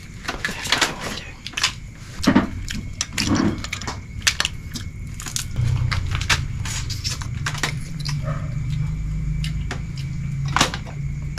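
Cooked crab shell being snipped and cracked with small scissors: a run of sharp clicks, snaps and crunches. A low steady drone comes in about halfway through.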